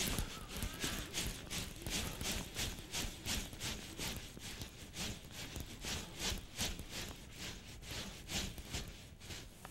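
Fishing reel being cranked while a metal jig is worked vertically. It gives a steady run of sharp clicks, about three or four a second.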